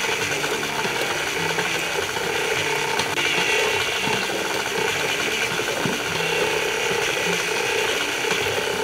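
KitchenAid Classic stand mixer running steadily, its motor and gearbox whirring as the beater works a crumbly, dry flour-and-butter dough in a stainless bowl.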